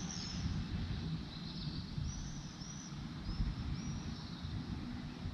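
Birds calling outdoors in short, high, arched notes, repeated several times, over a steady low rumble of wind noise.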